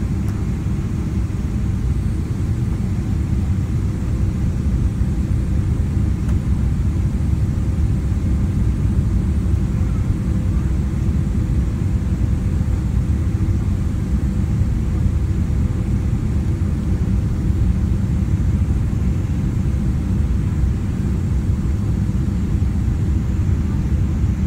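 Steady low rumble of a Boeing 777-300's engines and airflow heard inside the cabin during descent, with a faint steady hum.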